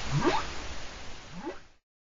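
Whale calls: two short upward-sweeping calls about a second apart over a steady hiss, cut off abruptly near the end.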